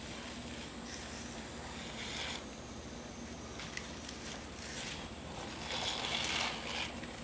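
Faint rustling and soft tearing of pumpkin leaves as the stringy outer skin is stripped off their stems by hand: a few brief scratchy rustles, the strongest about six seconds in.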